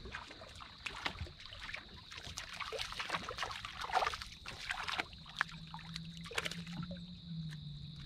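A hooked fish splashing irregularly at the water's surface beside the boat as it is reeled in. Crickets trill steadily in the background.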